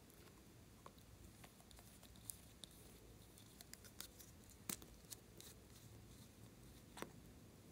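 Near silence broken by a handful of faint, sharp clicks and taps from small glass nail polish bottles with plastic caps being handled and twisted open, the two loudest just under five seconds in and about seven seconds in.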